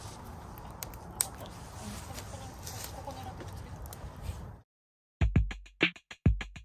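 Steady open-air background noise with a few light clicks, cut off abruptly; after a short silence, a run of sharp, loud drum-like hits with deep thumps opens a music track.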